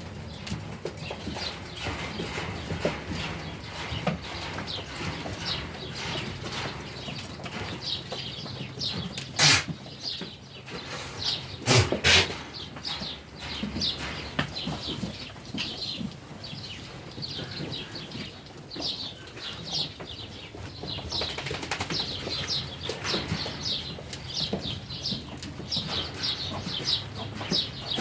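Barn ambience around a resting flock of sheep: small birds chirping busily throughout, over a low steady background. There are two sharp knocks, about nine and twelve seconds in.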